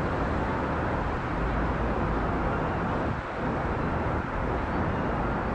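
Steady jet roar of an Airbus A380's four Rolls-Royce Trent 900 turbofans as the airliner climbs away after takeoff.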